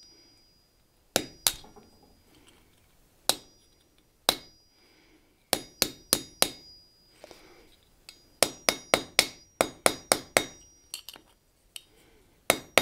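Hand hammer tapping on a small steel butterfly hinge on the anvil, working it cold. The light metallic strikes ring briefly; they come one or two at a time at first, then in a quicker run of taps about eight seconds in.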